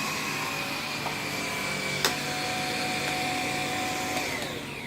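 Bissell AirRam cordless upright vacuum running steadily with a high whine, with a single sharp click about two seconds in. Near the end it is switched off and the motor winds down.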